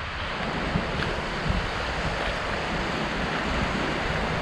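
Steady storm noise: wind buffeting the microphone over a constant even hiss, with no distinct events.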